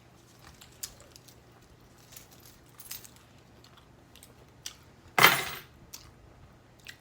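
Eating and food-handling noises close to a phone microphone: scattered small clicks and taps, with one louder brief burst of noise about five seconds in.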